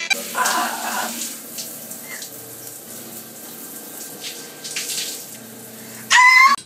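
A shower running, its spray hissing steadily on tile. Near the end there is a short, loud, high-pitched sound.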